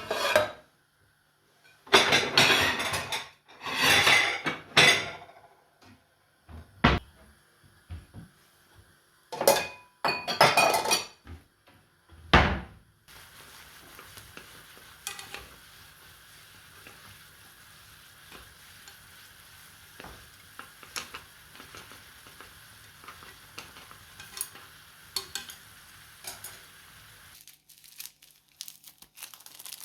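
Dishes and cutlery being handled: a run of loud clattering and scraping bursts over the first dozen seconds, then a steady faint hiss with small clinks that cuts off near the end.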